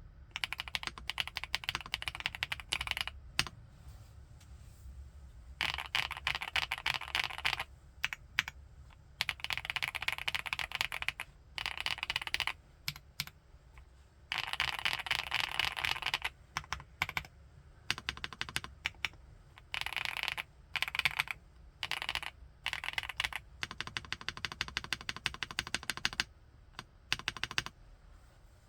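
Typing on an FL-ESPORTS Geo75 mechanical keyboard fitted with Kailh x Funkeys BCP switches: fast runs of keystrokes a second or two long, broken by short pauses and a few single key presses. The typing stops just before the end.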